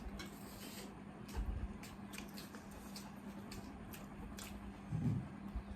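Eating sounds: wet chewing and mouth clicks, a scatter of small squishy ticks, over a steady low hum. A soft thump about five seconds in.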